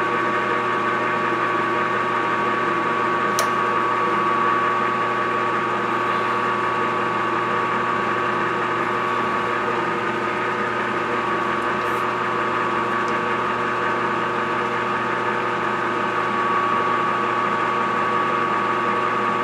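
Metal lathe running under power feed through a light threading pass on a stainless steel shaft: a steady mechanical hum with a constant high whine.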